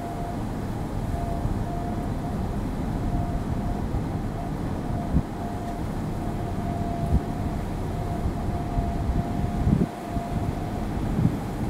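Wind rumbling on the microphone, with a few low thumps from gusts hitting it. A thin steady tone keeps breaking in and out.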